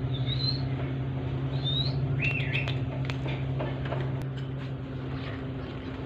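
Young green parakeets giving a few short chirping calls while they feed, with a few faint clicks. A steady low hum runs underneath.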